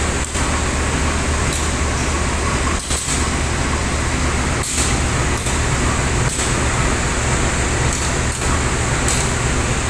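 Steady low hum and hiss of a stationary diesel passenger train idling at the platform, with a few brief dips in the noise.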